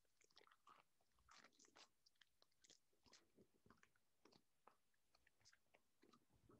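Very faint crinkling of a foil Pokémon booster pack wrapper and soft clicks of trading cards being handled and sorted, in short irregular bits.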